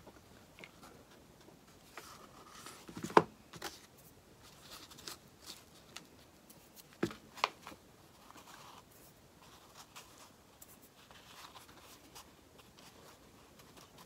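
Quiet handling of a hot glue gun and cloth on a work table: soft fabric rustling with a few sharp plastic clicks and taps. The loudest click comes about three seconds in, with two more close together about seven seconds in, as the glue gun is handled and set down.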